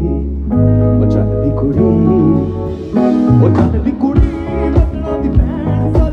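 Live band music from a Punjabi pop stage band, heard from the crowd. Sustained keyboard chords run over bass guitar, with a male singer's voice. Drum hits come in strongly about halfway, and the music gets louder.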